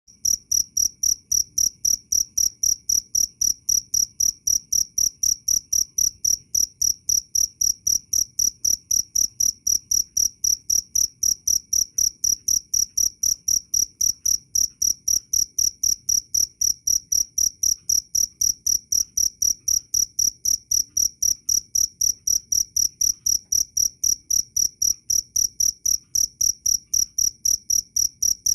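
Cricket chirping steadily and loudly, a high-pitched chirp repeated evenly at about three a second.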